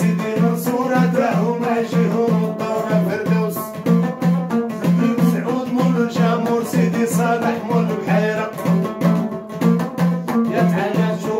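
A man singing to his own long-necked plucked lute, which repeats a low note in a steady, even pulse under the melody.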